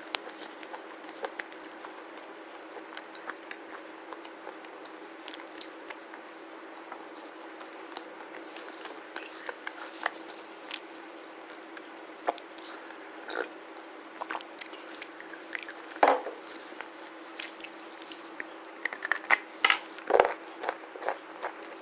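Close-miked chewing of a black slate bar of edible clay: scattered crisp crunches and mouth clicks, with a louder bite about two-thirds of the way in and a dense run of crunching near the end.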